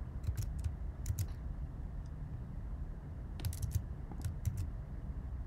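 Computer keyboard typing, in two short runs of keystrokes: one at the start and another about three and a half seconds in, over a low steady hum.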